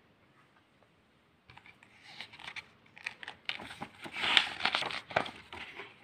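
Pages of a picture book being turned: paper rustling and crinkling, starting about a second and a half in, with the loudest rustles around four and five seconds in.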